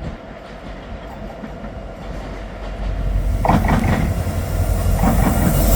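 Freight train of empty timber wagons hauled by Medway locomotive 5033 approaching, its low rumble swelling sharply about halfway through as it draws near, with wheels clattering on the rails.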